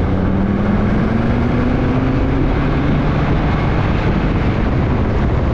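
Jeep Grand Cherokee WJ's 2.7 CRD five-cylinder turbodiesel accelerating hard in a full-throttle pull, its pitch rising over the first two seconds or so. After that the engine is buried under steady wind rush and road noise, because the microphone is held out of the window.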